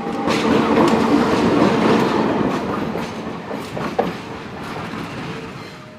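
A train passing close by, its wheels clacking over the rail joints in a rushing rumble that is loudest in the first two seconds and then slowly fades, with a sharp knock about four seconds in.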